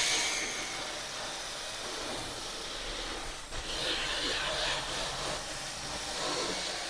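Cordless drill spinning a bristle scrub brush over a car headliner board: a steady scratchy hiss as the brush scours off the old foam layer that has crumbled and let go of the fabric. It grows louder for a moment about halfway through.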